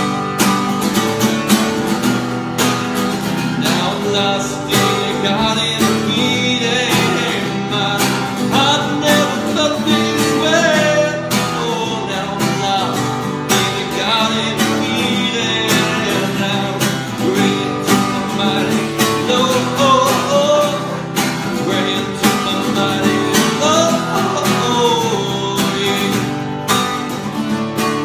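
Cutaway acoustic guitar played live, a solo performance of a song.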